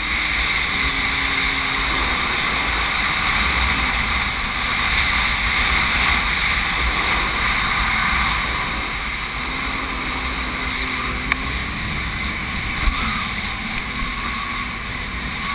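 Jet ski running at speed, its engine drone mixed with the hiss of water spray and wind on the microphone. The engine pitch rises and falls a few times as the throttle changes.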